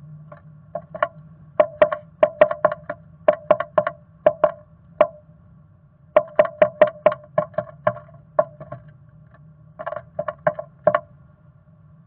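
Black-capped chickadee pecking at the wooden floor of its nest box: sharp taps in quick bursts of several a second, each ringing briefly in the hollow box, over a low steady hum.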